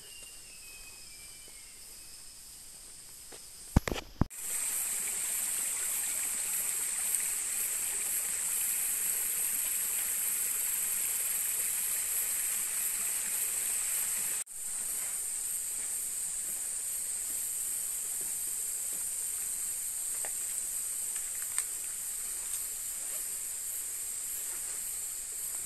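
Rainforest insects droning steadily in a high pitch. The drone starts abruptly right after a sharp knock about four seconds in and drops out for a moment midway. Before it, in the quieter opening, a bird gives a short run of falling whistled notes.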